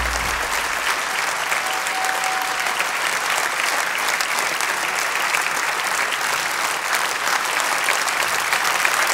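Large audience applauding steadily, a dense, even clapping that neither builds nor dies away.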